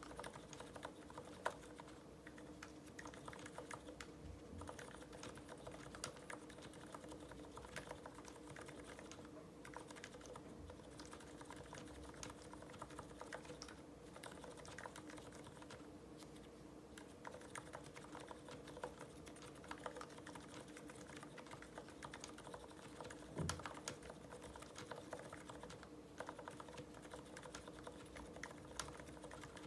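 Typing on an IDOBAO ID80 V2 mechanical keyboard with lubed Cherry MX Silent Red switches and GMK ABS keycaps: a steady run of soft, muted keystrokes. One heavier keystroke comes about two-thirds of the way through, over a faint steady hum.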